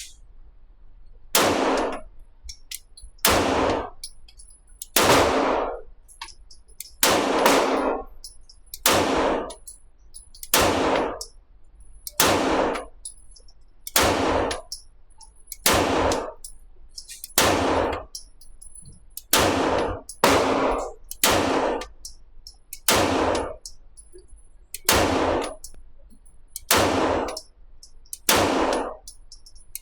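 Tanfoglio Defiant pistol fired in slow, steady single shots, about eighteen in all, roughly one every 1.5 to 2 seconds. Each shot has a short ringing echo tail.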